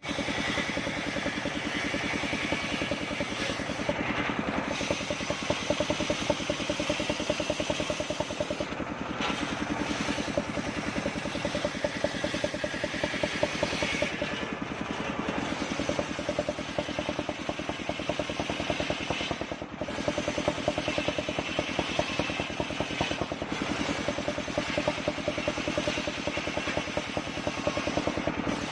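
Circular saw machine for cutting wood running steadily, with a fine rapid pulsing throughout.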